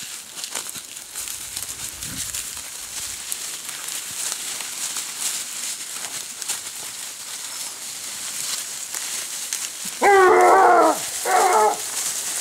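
Hunting hound of the blue Gascony basset type giving tongue twice near the end, a long wavering bay and then a shorter one, over steady rustling and snapping of dry leaves and brambles as the pack pushes through the undergrowth.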